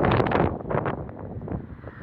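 Wind buffeting the microphone in gusts, strong for the first half second, then easing off.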